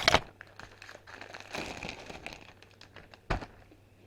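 Packaging being handled and unwrapped: soft rustling and crinkling, with a sharp click at the start and a single thump about three seconds in.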